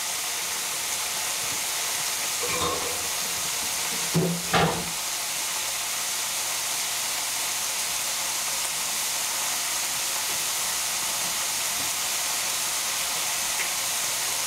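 Steady sizzle of frozen corn and red and green bell peppers frying in a hot oiled pan, browning as their moisture cooks off. A couple of brief clunks break in about two and four seconds in.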